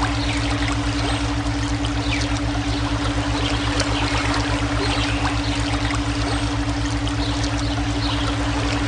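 Running water rushing steadily, layered with steady electronic brainwave tones: a held tone and a low hum that pulses rapidly and evenly.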